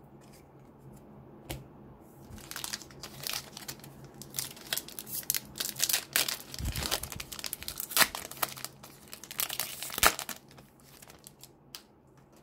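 Foil trading-card pack, a 2020 Select AFL Footy Stars pack, being torn open and crinkled by hand. A run of crackling rips and crinkles starts about two seconds in and stops about a second before the end.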